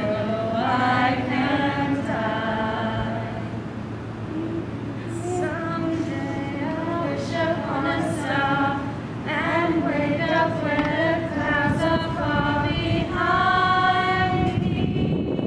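A small group of voices singing together without accompaniment, in phrases of held notes, ending on one long held note near the end.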